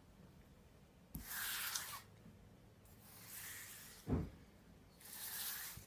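Cardstock cutout pieces rustling and sliding across a cutting mat as they are gathered up by hand, in three short stretches, with a single soft thump about four seconds in.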